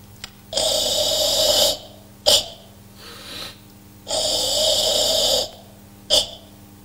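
Forceful ibuki breathing during Sanchin kata: two long, hissing, hoarse exhalations of over a second each, each followed by a short sharp breath.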